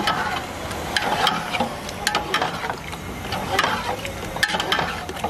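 Long metal ladle stirring thick chicken tikka gravy in a large metal pot, scraping and clicking against the pot many times. The masala is being fried down over the heat.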